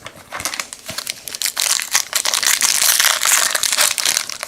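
Plastic trading-card pack wrapper crinkling as it is handled and torn open. It starts as a few scattered crackles and turns into a dense, loud crinkling from about a second and a half in.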